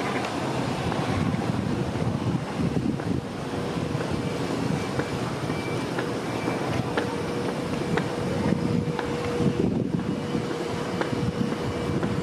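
Wind rumbling on the microphone over outdoor ambience while walking, with a faint steady hum coming in about halfway through.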